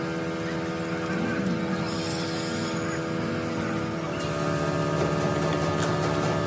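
A machine running with a steady multi-tone hum that changes pitch and gets slightly louder about four seconds in.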